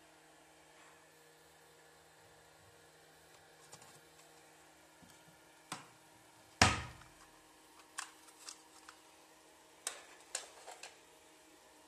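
A cabinet door shut with a single thud about halfway through, after a lighter click, followed by a string of short plastic clicks and snaps as a cassette tape's clear case is handled and opened.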